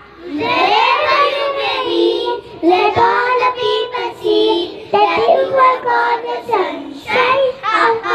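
A group of young children singing an English song together in chorus, with held notes and short breaks between phrases.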